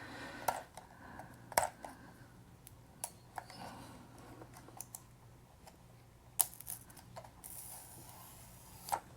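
Scattered small plastic clicks and light scraping as worn adhesive feet are pried and scraped off the underside of a Razer DeathAdder Elite mouse. About six sharp, separate clicks, with a brief scratchy scrape near the end.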